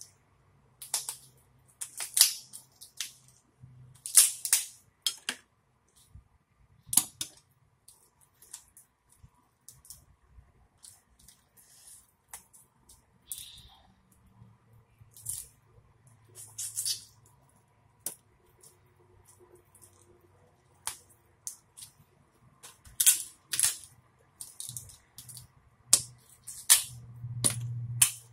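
Boiled lobster tail shells cracking and snapping as they are bent and pulled apart by hand, in irregular sharp clicks with short pauses, coming thick and fast near the end.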